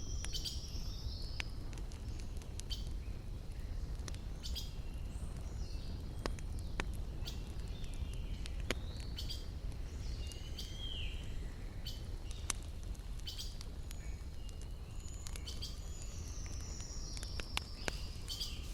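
Wood campfire crackling with sharp, irregular pops over a steady low rumble, while birds call a few times, with a long falling trill near the end.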